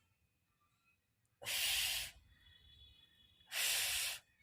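A voice making the phonic sound of the letter F: two breathy "fff" hisses, each under a second, about two seconds apart.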